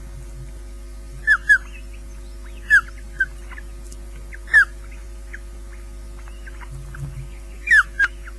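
Ospreys chirping at the nest during a feed: short, falling chirps, loud ones in pairs about a second and a half and three seconds in, another single one, and a last pair near the end, with fainter cheeps between. A steady low electrical hum runs underneath.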